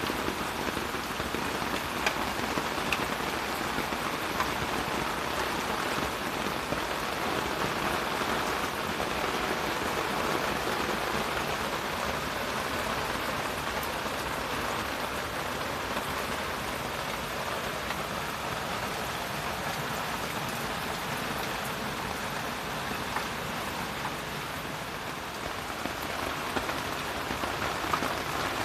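Steady rain falling, an even hiss with the odd single drop standing out.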